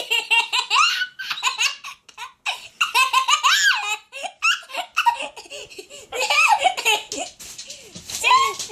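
A toddler belly-laughing in repeated high-pitched bursts, pausing briefly a couple of times.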